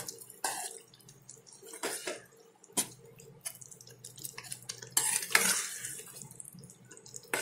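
A spoon stirring a thick, wet tomato-onion masala in a pan, with irregular scrapes and clicks of the spoon against the pan.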